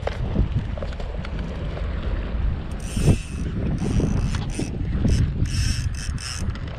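Wind rumbling on the microphone, with a run of short, broken ratchet-like rasps starting about three seconds in.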